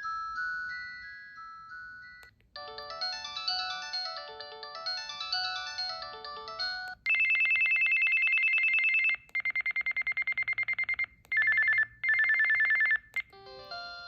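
Preloaded ringtones of a Samsung SPH-A600 cell phone played in turn: a short electronic melody, then a longer multi-voice electronic tune, then, about seven seconds in, a louder, fast-pulsing telephone-ring trill in three bursts. A new tune begins near the end.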